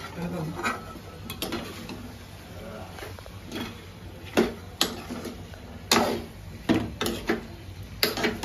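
A metal spatula stirring prawns in an aluminium kadai, knocking and scraping against the pan with about ten sharp, irregular clinks.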